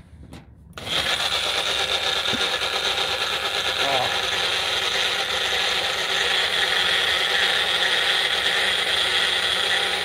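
Magic Bullet personal blender running, its motor and blade blending pesto, with a loud, steady whir. It starts suddenly about a second in.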